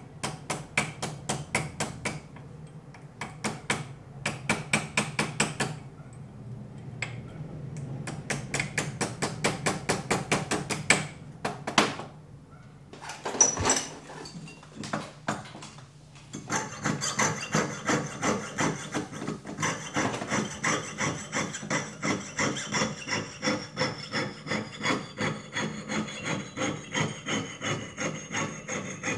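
A small jeweller's hammer tapping quickly on a punch held on a steel block, in runs of light strikes about seven a second. From about halfway through, a jeweller's piercing saw cuts metal on a wooden bench pin in steady strokes about twice a second, with a faint ringing tone that slowly falls in pitch.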